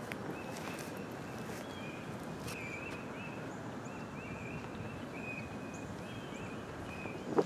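Outdoor ambience: a steady low rush of background noise, with a small bird chirping over it in a run of short, high, repeated notes.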